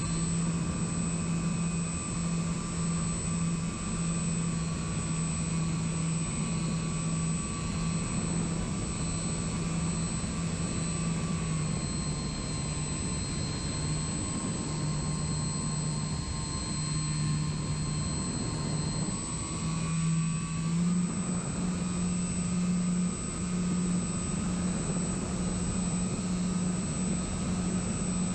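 Onboard sound of an electric RC plane in flight: the motor and propeller give a steady hum with a thin high whine over wind rush. The pitch steps down about twelve seconds in and back up around twenty seconds as the throttle changes.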